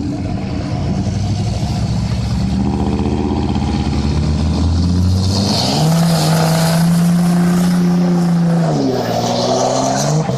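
Pickup truck engines running, then revving hard about halfway through under heavy load as two trucks pull against each other. The revs hold high, dip briefly and climb again near the end.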